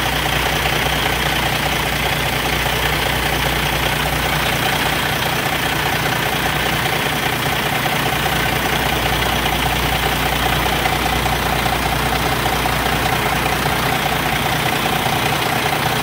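Kenworth semi truck's diesel engine idling steadily.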